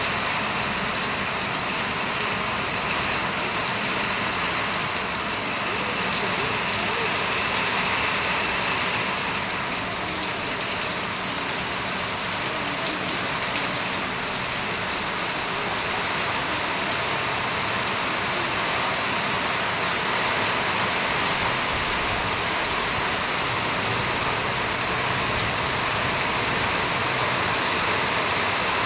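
Steady rain falling, a constant hiss with fine patter of drops hitting surfaces.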